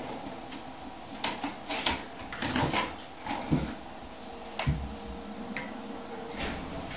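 Stainless steel dog food bowls clinking and knocking as they are set down on a wooden floor, in irregular scattered clatters, with one bowl ringing briefly about five seconds in.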